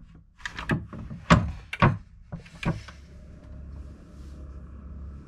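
A yacht's wooden companionway hatch being slid and knocked open, with four sharp wooden knocks and scrapes in the first three seconds. Then a steady low wind rumble.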